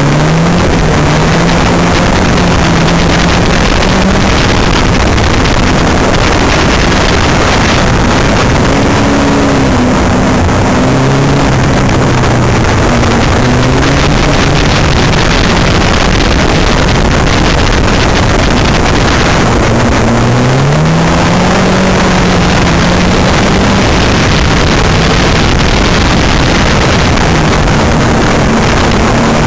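Ford Crossflow four-cylinder engine of a Locost kit car at racing speed, its pitch rising and falling several times through gear changes and corners. Heavy wind rush on the microphone from the open cockpit.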